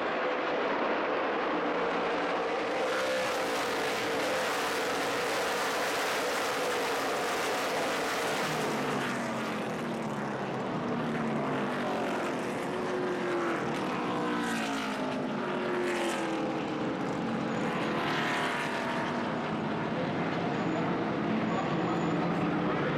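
NASCAR Sprint Cup stock cars' V8 engines racing past: a steady, loud engine drone, with the pitch of passing cars sweeping up and then down several times.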